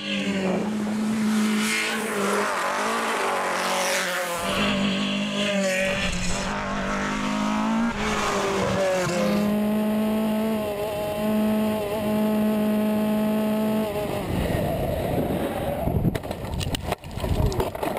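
Race car engines revving hard as competition cars accelerate flat out, with some tyre squeal. The engine note rises and falls through the gear changes, and the sound shifts between different cars several times.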